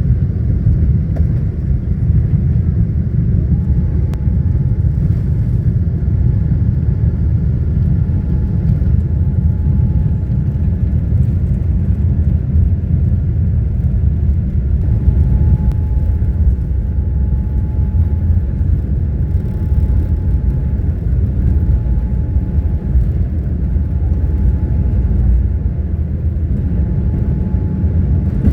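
Boeing 787-9 Dreamliner's jet engines running: a steady, loud low rumble with a faint high whine that comes and goes.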